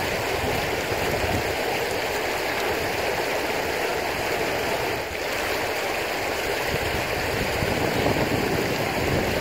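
Shallow river running over stones: a steady rushing of flowing water, with a brief slight dip about five seconds in.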